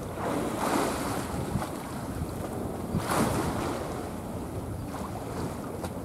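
Wind buffeting the microphone over sea waves washing, with two louder surges, one just under a second in and one about three seconds in.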